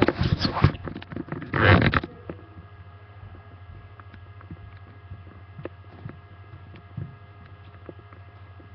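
Handling noise as the webcam is moved: loud rustling and knocking for about two seconds, ending in a louder burst. Then a steady low electrical hum with a few faint clicks.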